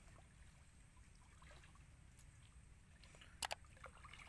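Near silence: faint outdoor ambience with a low rumble, and a couple of small clicks about three and a half seconds in.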